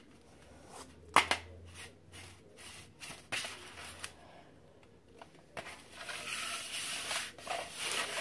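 Hands raking and scraping kinetic sand across a metal tray. A few sharp taps and clicks come in the first few seconds, then a continuous rough scraping runs from about halfway on.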